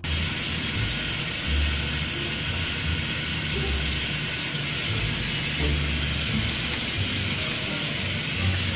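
Shower water running steadily, a constant rushing hiss that starts and stops abruptly.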